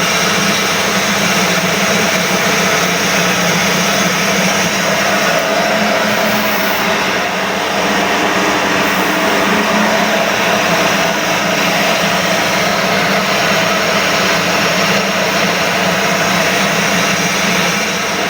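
Masala pulverizer milling machine running steadily: a loud, even whirring hum at a constant pitch over a broad grinding hiss.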